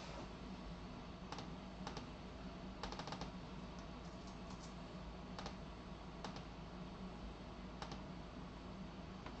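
Faint, irregular clicks of typing on a computer keyboard, with a quick run of keystrokes about three seconds in, over a low steady hum.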